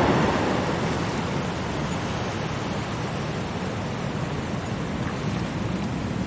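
Loud, continuous rushing of water, loudest at the start and easing to a steady level within a couple of seconds.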